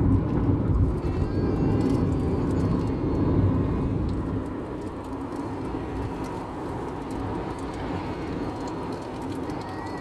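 Steady road and engine noise heard inside a moving car's cabin, a low rumble that is louder for the first few seconds and then settles a little quieter.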